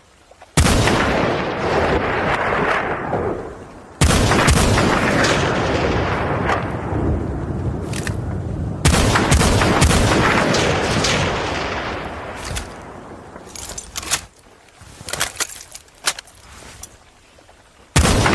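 Norinco NDM-86 semi-automatic rifle firing single shots, each with a long rolling echo that dies away over several seconds. Three shots come about four seconds apart, followed by a run of short, sharp clicks and knocks, then a fourth shot near the end.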